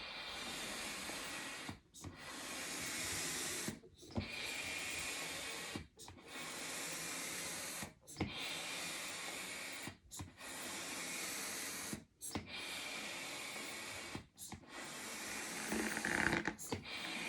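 Double-action hand pump forcing air into a 12-inch latex balloon: long, even hissing strokes about every two seconds, each broken by a brief pause at the turnaround, with the last stroke near the end louder and rougher.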